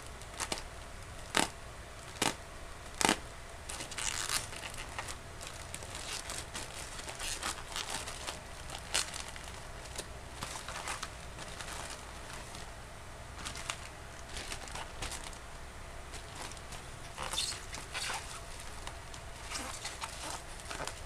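Scissors snipping three times into a plastic courier mailer bag, then the plastic tearing and rustling as a bubble-wrapped parcel is pulled out and turned in the hands, the bubble wrap and tape crinkling in irregular bursts.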